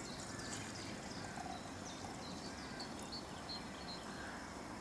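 Small birds chirping over a steady soft hiss of outdoor background noise.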